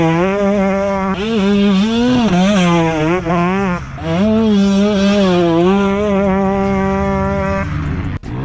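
KTM 125 SX two-stroke motocross bike ridden through a sandy turn: the engine revs up and falls back again and again with the throttle, holds a steady high pitch for a couple of seconds, then drops off near the end.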